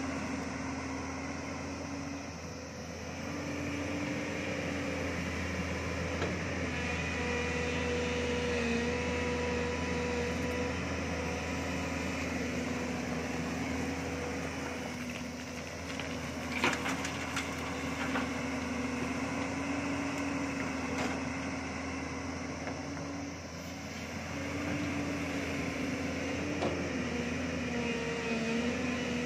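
Tracked hydraulic excavator's diesel engine running under load, its pitch dipping and rising a little as the boom digs, lifts and swings. A few sharp knocks of gravel and bucket, the loudest a little past halfway.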